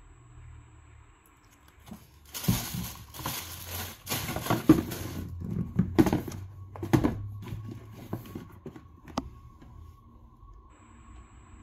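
Hands handling sneakers and their cardboard shoebox: tissue paper rustles and a string of soft knocks as the box is closed and the shoes are set down on its lid, with one sharp click near the end.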